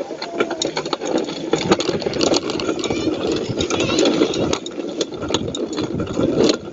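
Bike rattling and clattering over a rough dirt trail, with many sharp clicks and knocks over a steady rush of wind on the camera microphone.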